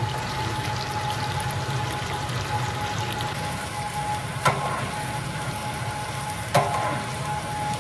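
Steady rushing noise with a faint steady tone underneath, broken by two sharp metallic clanks of cookware about two seconds apart, each ringing briefly.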